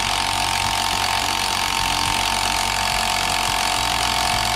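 Handheld power tool running steadily on the crankshaft pulley bolt of a Cummins 6BT diesel engine, a steady whine over a loud rush of noise, cutting off sharply near the end.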